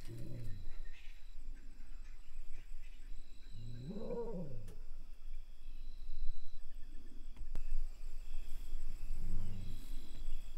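A lioness giving low moaning calls, four of them about every three seconds, each rising and then falling in pitch. The call about four seconds in is the loudest.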